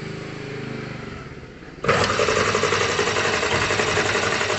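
Electric-motor cassava grinder with a stainless grinding drum switched on about two seconds in: after a low hum it starts suddenly and runs loud and steady.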